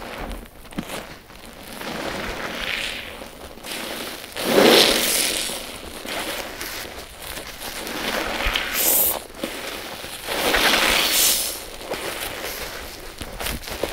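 Wet sponges being squeezed by hand: about four separate squeezes of crackling, wet noise, the loudest about five seconds in.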